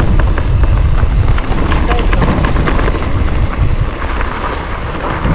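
Wind buffeting the microphone of a mountain bike riding down a trail, a heavy low rumble, with scattered clicks and rattles from the tyres and bike over rough ground.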